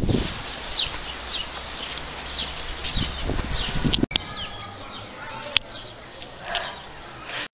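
Small birds chirping: short high chirps repeating about twice a second, with different, thinner calls after a brief dropout about four seconds in.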